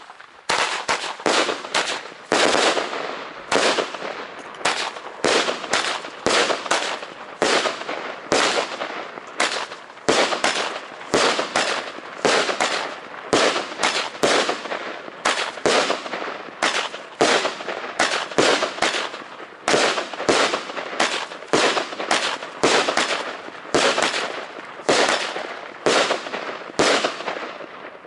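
Jorge Thunder King firework battery firing a rapid run of sharp bangs, about two a second, each fading out in a short echo. The volley stops shortly before the end.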